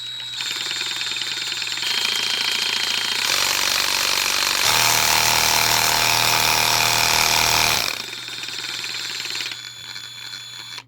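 Hyper Tough 12-volt cordless reciprocating saw running. Its speed steps up as the variable-speed trigger is pressed further, loudest from about five to eight seconds in. It then eases back to a slower run and stops at the end.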